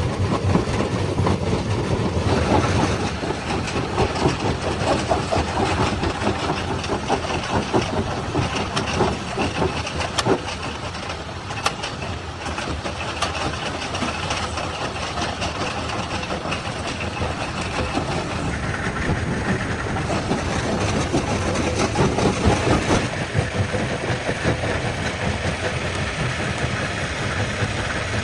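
Stone crusher running, with a steady engine and a dense, continuous rattle and clatter of rock being broken and tumbling through the machine.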